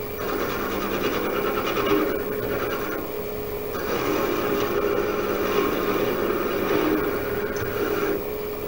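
Metal lathe running at low speed with a steady hum while a turning tool shaves down a layered leather cue tip, giving a dry rasping scrape. The scraping eases off about two seconds in, then comes back heavier from about four seconds in, until shortly before the end.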